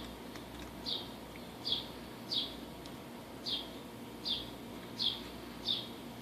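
A bird calling over and over: short, high chirps, each dropping slightly in pitch, about one every 0.7 seconds, seven in all, over a steady low background rumble.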